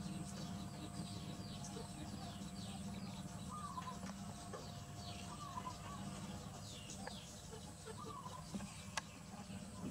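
Birds chirping: many quick, high, falling chirps, with a lower call repeating every second or two, over a steady low hum. Two light taps come near the end.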